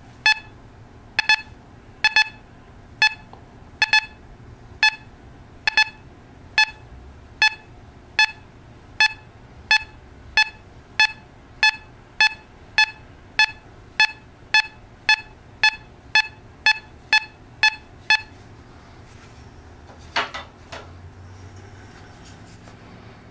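Teknetics Gamma 6000 metal detector sounding a short target-response beep each time a test target is swept past its coil, about one a second, a few of the early ones doubled. The beeps stop about three quarters of the way through, and a single knock with a brief rattle follows.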